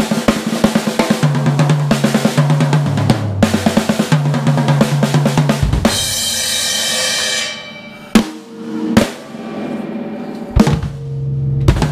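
Acoustic drum kit played live: fast, dense snare and tom fills for about six seconds, the toms ringing at distinct pitches, ending in a cymbal crash that rings out. Then come a few spaced single hits, and the playing picks back up near the end.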